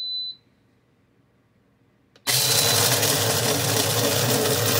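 A single short electronic beep as the start button is pressed, then about two seconds of quiet before the Power XL Grind & Go Plus coffee maker's built-in grinder starts with a click and runs loud and steady, grinding coffee beans.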